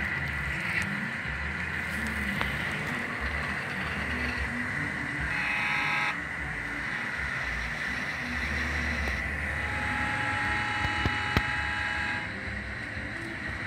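HO-scale model diesel locomotive running along the track, with a steady motor whine and wheel rumble. Two held horn blasts sound, a short one about five seconds in and a longer one of about three seconds near the end, and a single sharp click just before the second blast stops.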